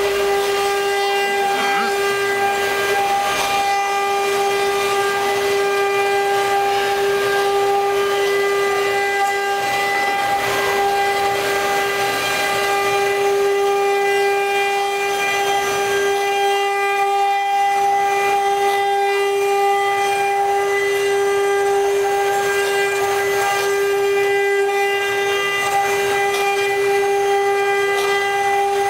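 Four spindles of a four-head CNC wood router running together while carving relief into a wooden board: a steady high whine made of one strong tone and its overtones, over the hiss of the bits cutting the wood.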